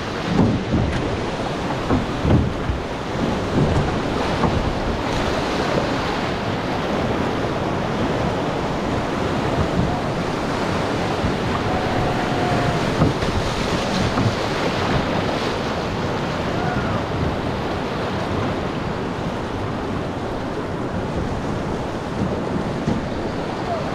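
Rushing whitewater of a river rapid around a drift boat: a steady, dense rush of water, with gusts of wind buffeting the microphone during the first few seconds.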